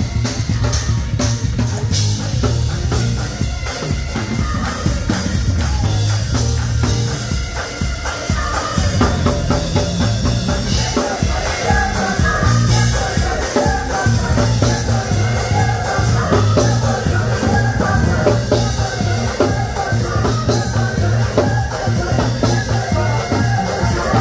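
Live gospel music from a church band, led by a busy drum kit over heavy bass. About eight seconds in, a fuller layer of pitched parts joins.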